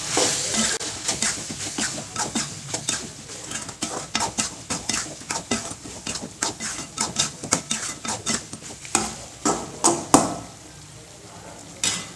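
Perforated steel ladle scraping and clinking against an aluminium kadai as chicken pieces are stirred, several strokes a second, over a steady sizzle of frying. The stirring stops about ten seconds in with a loud knock, and one more tap comes near the end.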